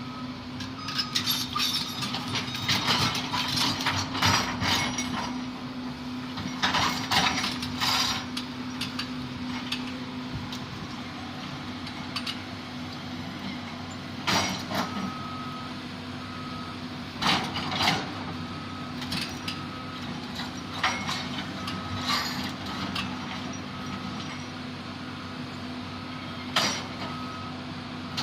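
Heavy construction machine's diesel engine running steadily, with loud metal clanks and knocks from the working machine. From about halfway through, a back-up alarm beeps about once a second.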